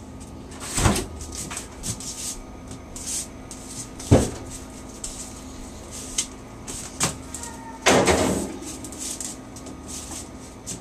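Refrigerator door opened and a baking pan handled and put inside: several separate knocks and bumps, the longest a clattering scrape about eight seconds in.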